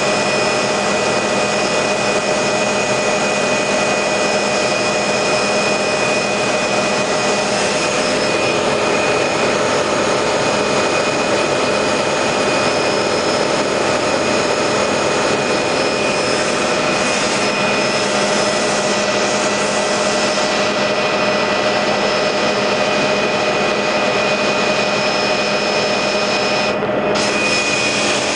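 Steady engine and airframe noise inside a small aircraft's cabin in flight: a constant loud drone with several high, unchanging whine tones.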